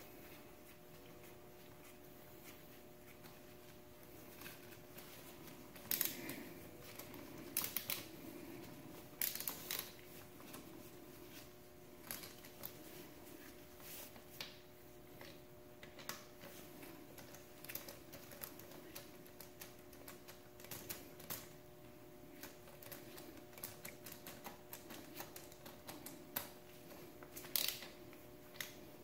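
Scattered clicks and light knocks of hand tools and parts being handled during jet-ski engine mount work, over a steady low hum.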